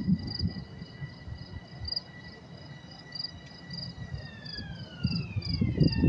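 Field crickets chirping in a steady high pulse, about two chirps a second. Under them a faint, steady multi-pitched whine slides down in pitch over the last two seconds, with low rumble at the start and end.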